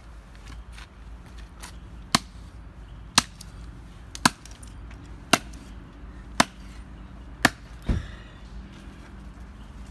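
Hatchet chopping a firewood log: six sharp strikes about a second apart, then a duller knock.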